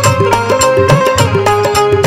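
Instrumental passage of a traditional Bhojpuri devotional folk song (Devi pachra geet): a fast, even hand-drum beat with low, pitch-bending drum strokes under a sustained melody line.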